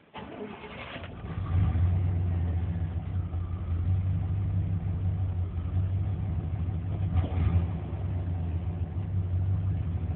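1994 Chevrolet K1500's 5.7-litre (350) throttle-body-injected V8 cranked by the starter for about a second, then catching and running at a rough idle. The hard start and rough idle come from a failing engine coolant temperature sensor.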